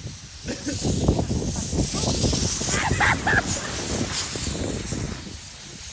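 Inflatable snow tube carrying two riders sliding down a crusty, packed snow slope: a rough hiss and scrape of snow, with many small bumps, building up about half a second in and easing off near the end.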